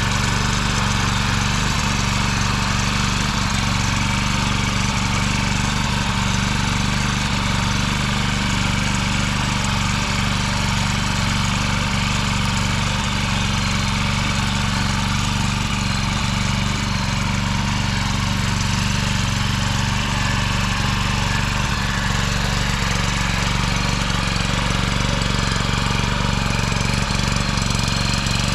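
Small engine of a motor hoe (walk-behind rotary tiller) running steadily as it tills garden soil.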